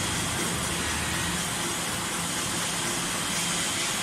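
Heavy-duty CNC metal spinning (flanging) machine running: a steady mechanical noise with an even hiss and a low hum that comes and goes.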